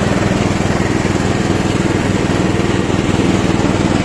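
The 12.5-horsepower engine of a riding lawn tractor running steadily at a constant speed.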